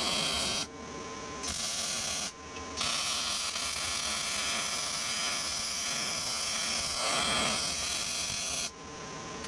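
Wire-feed (MIG) welding arc crackling steadily on steel plate. The arc breaks off briefly twice, about a second in and again after about two and a half seconds, and stops near the end, leaving the welder's faint hum.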